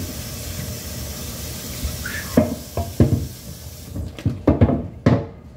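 Tap water running into a stainless steel sink while a wooden cutting board is scrubbed, then a series of sharp knocks and clatters as the board is lifted and handled against the sink. The water stops about four seconds in.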